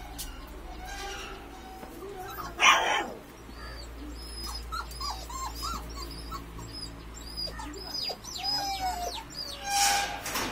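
Young Kanni puppies whimpering, a string of short, high, squeaky cries running through the second half. A loud, short, sharp sound comes about three seconds in and another near the end.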